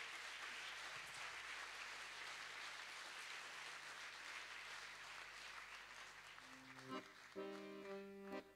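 Audience applause that slowly dies away; about seven seconds in, an accordion starts playing, a few short notes and chords.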